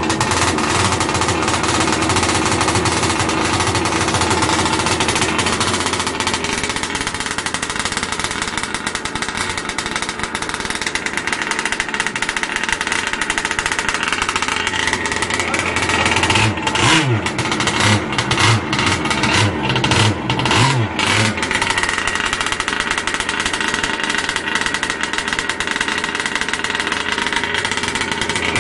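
Small 26cc two-stroke gas engine of an RC speed boat running steadily at high revs. About two-thirds of the way through, the throttle is chopped and blipped in a string of short bursts, then the engine goes back to a steady high-rev run.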